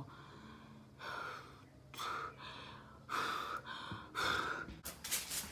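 A person breathing in short, breathy gasps and exhalations, four in a row about a second apart.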